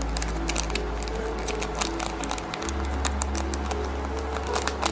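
Background music with held bass and chord notes, under the crinkling and rustling of a tea-bag sachet being torn open by hand.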